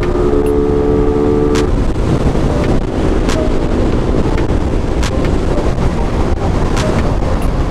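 Suzuki Raider 150 Fi single-cylinder motorcycle riding at speed, its engine note under heavy wind noise on the microphone. A steady engine tone fades about a second and a half in, and scattered sharp clicks run through the rest.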